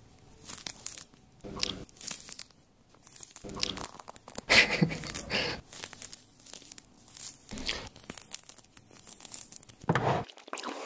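Mandarin orange being peeled by hand: the peel tearing away from the fruit in several short bursts with quiet gaps between.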